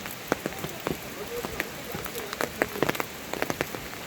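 Rain falling, with heavy drops striking a hard surface in sharp, irregular taps, several a second, over a steady hiss.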